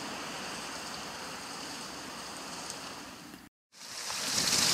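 Water rushing steadily down an artificial river chute that feeds a hydraulic ram pump. The sound cuts out for a moment about three and a half seconds in, then returns louder and hissier.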